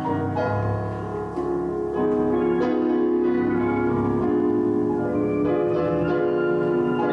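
Slow piano music playing held chords, with new notes entering every second or two.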